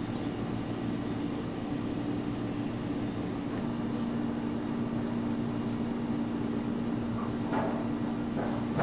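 Steady low mechanical hum at two close pitches over a constant hiss.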